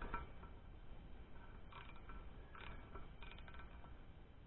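A few faint, light metallic clicks and scrapes of a small steel nut being turned by hand onto a threaded stud, not yet starting straight on the thread.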